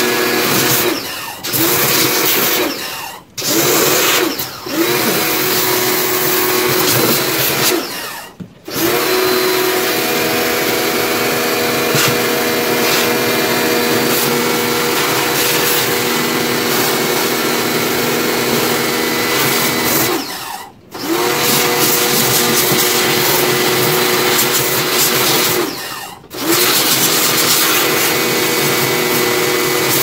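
Electric pressure washer running, its motor humming under the hiss of the spray as water jets into a plastic washing-machine tub. The spray stops for a moment about six times as the trigger is let go, and the motor spins back up each time.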